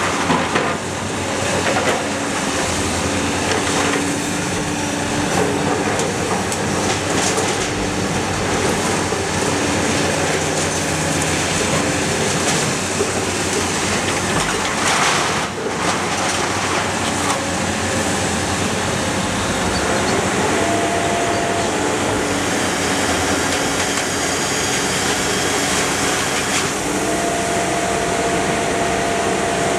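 Iron Pack car baler running, its machinery and hydraulics working steadily with a loud clatter of metal about halfway through. A higher steady whine comes in briefly about two-thirds of the way through and again near the end.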